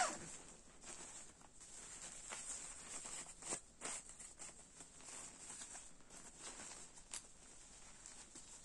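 Rustling and crinkling of a down sleeping bag's thin 20D polyester shell as it is handled, with scattered short ticks. A louder zipper pull ends right at the start.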